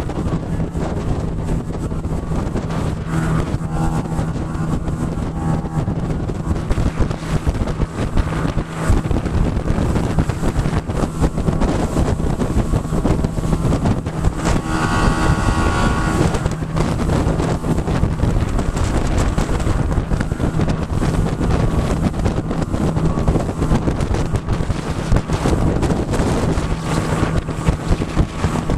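Mercury 40 hp outboard motor driving a small boat at speed, a steady engine drone buried under loud wind buffeting the microphone. About halfway through, a higher pitched tone rises briefly over the noise.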